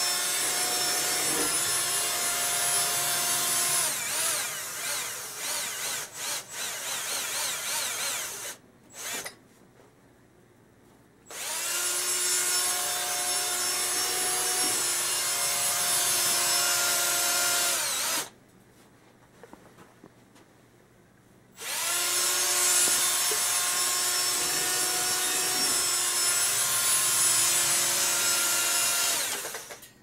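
Cordless drill spinning a tube-cleaning brush inside the heat exchanger tubes of a downdraft gasification outdoor wood boiler. A steady motor whine runs three times with short pauses between; the first run falters and wavers in its second half.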